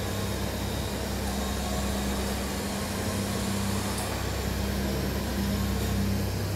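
Small model jet turbines running their cool-down after shutdown: a steady whirring hiss with a low hum.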